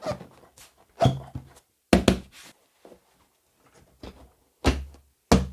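Motorcycle seats being refitted: a series of about five hard thuds and clunks as the seats are set down and pressed into place on the bike.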